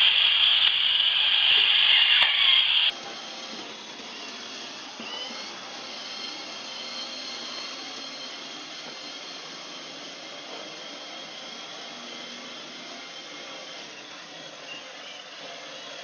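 Robot vacuum cleaners running. First comes a loud, steady high-pitched whine, which cuts off abruptly about three seconds in. A quieter, steady motor whirr follows.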